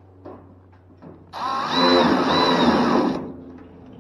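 Cordless drill driving a screw in about a two-second burst, the motor's pitch rising and falling as the trigger is worked.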